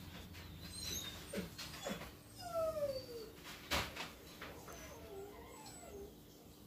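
Husky puppy whimpering, a few short whines that slide down in pitch, the clearest about two and a half seconds in. A sharp click a little before four seconds in is the loudest moment.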